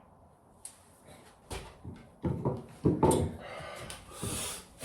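Clicks and knocks of plastic plumbing fittings being handled and pushed together, louder around the middle, then a scraping rasp near the end.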